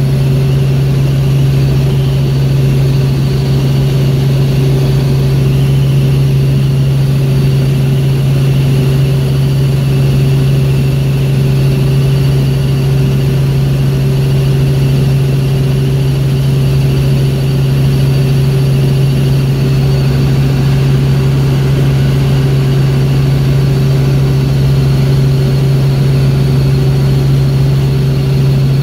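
Helicopter in steady cruise flight, heard from inside the cabin: a loud, unchanging drone from the rotors and turbine, with a fainter high whine above it.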